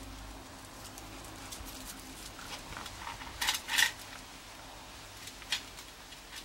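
A wire-haired dog and Basset Fauve de Bretagne puppies play-fighting, with two short, sharp sounds about three and a half seconds in and another about five and a half seconds in.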